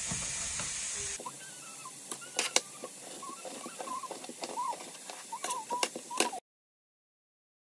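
Kitchen knife chopping through pork belly onto a plastic cutting board: scattered sharp knocks, with faint high warbling tones in the background. A steady hiss fills the first second, and the sound cuts off suddenly about six seconds in.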